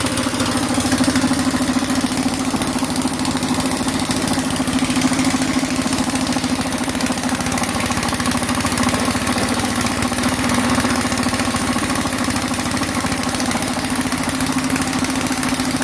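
Petrol engine driving an air compressor, running at a steady speed with an even, unbroken hum.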